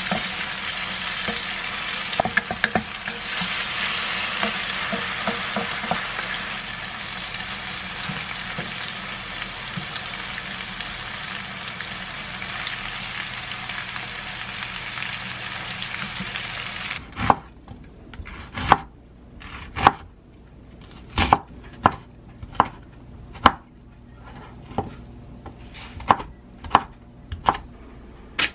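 Tofu steaks sizzling steadily in oil in a frying pan, with a few quick taps of the spatulas against the pan a couple of seconds in as they are turned. About seventeen seconds in the sizzle stops abruptly, and a dozen sharp, irregular clicks and taps follow.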